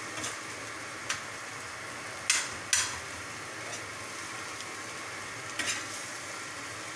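Scrambled egg with onion and tomato sizzling in a black frying pan while a metal spatula stirs it, scraping and clacking against the pan a few times, the two loudest clacks about two and a half seconds in.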